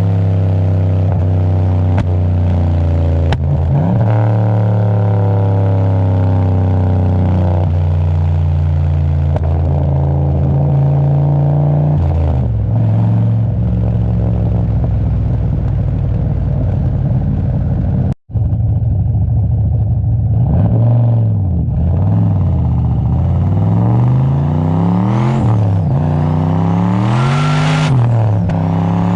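Turbocharged LS1 V8 running under steady load, its revs dropping about halfway through, then cut off abruptly for a moment. Near the end it revs up and down several times, with a high whine rising alongside the revs as the turbo spools.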